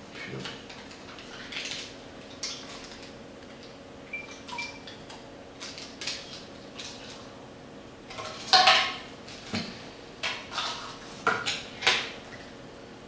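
A spoon clinking and scraping in a small cup, with short sharp clinks and knocks scattered throughout. The loudest clatter comes about eight and a half seconds in, followed by several more sharp clinks over the next three seconds.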